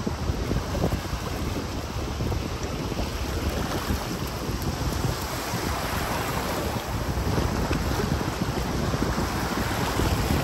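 Ocean surf washing onto the beach, with wind buffeting the microphone as a steady low rumble.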